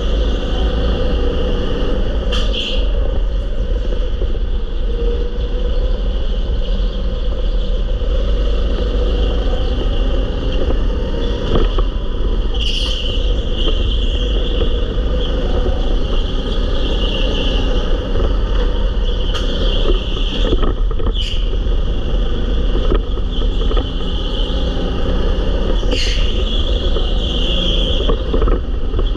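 Go-kart running at speed around a track: a steady motor sound under a heavy low rumble of vibration and wind on the onboard camera's microphone, with a few brief sharp clicks.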